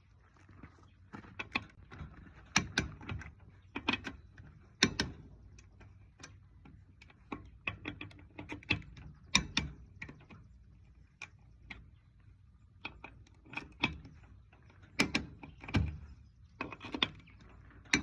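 Irregular metallic clicks and clanks of hand tools working on a Dayton-style spoke wheel's clamp nuts, with a few louder knocks among them.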